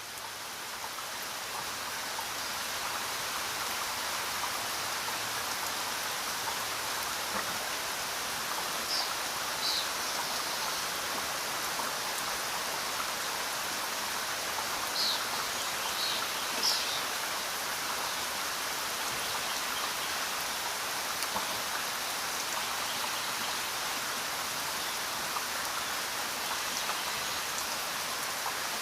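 Steady rainfall, an even hiss that swells in over the first few seconds and then holds level, with a few short high-pitched notes around the middle.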